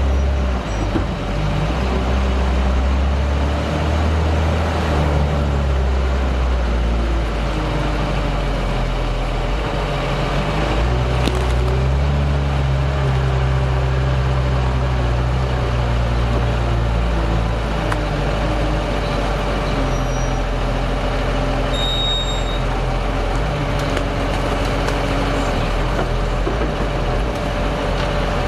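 JCB wheel loader's diesel engine running under load, its speed rising and falling in steps as the loader digs into a manure heap and lifts its bucket, with a tractor engine running alongside.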